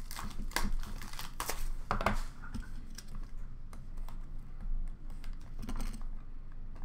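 Hands handling shiny foil-wrapped hockey card packs and their cardboard box: a run of light clicks, taps and rustles, busiest in the first two seconds and fainter after that.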